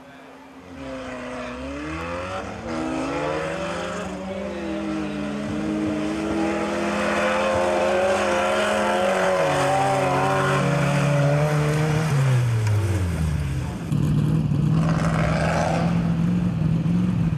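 Mud drag vehicle's engine revving: its pitch climbs in the first seconds and is held high for several seconds. It then drops a step and falls away as the throttle comes off. Near the end a steady, lower engine drone takes over.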